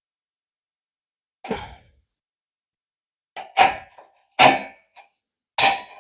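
Hand shears for metal cutting through thin metal: single crunching snips, one on its own, then after a pause a quicker run of several.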